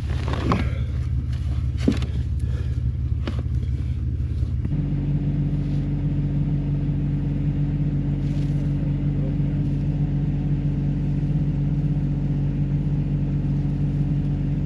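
Engine idling steadily. A few light knocks or clanks in the first few seconds, and about five seconds in the engine tone changes abruptly to a slightly different steady idle.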